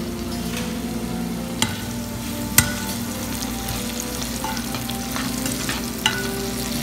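Onions, tomatoes and diced leftover beef sizzling in oil in a nonstick frying pan over fairly high heat while a spatula stirs them, with a few sharp clicks of the spatula against the pan.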